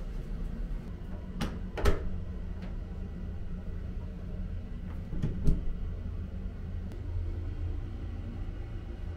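Door hardware being handled: a few sharp clicks and knocks from a lever door handle and latch and a shower booth's folding door, two about one and a half to two seconds in and a louder pair around five seconds in, over a steady low hum.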